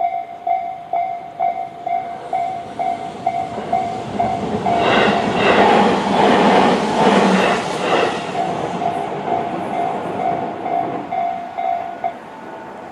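Level-crossing electronic alarm (Tobu 'sound C') ringing about twice a second while a Tobu 20400 series electric train passes. The train's wheels clack over the rail joints, loudest about five to eight seconds in, and the alarm stops near the end as the crossing clears.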